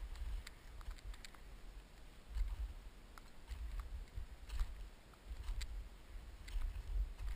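Footsteps crunching on hard-frozen glacier snow as a roped climber walks uphill, about one crisp step a second, over low rumbling on the body-worn microphone.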